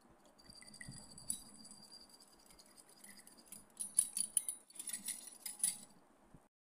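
A utensil clinking and scraping against a glass bowl while liquid batter ingredients are stirred together, with quick clicks coming thick and fast in the second half.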